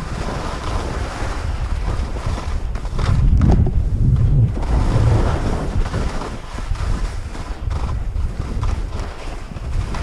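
Wind rushing and buffeting over a skier's action-camera microphone during a fast descent on snow, with the hiss of skis sliding through the snow; the rush is strongest about three to five seconds in.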